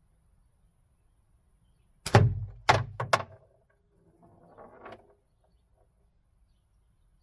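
A slingshot shot: three sharp cracks within about a second as the 10 mm steel ball is released and strikes the homemade target, followed about a second later by a softer rattle from the target's built-in rattle.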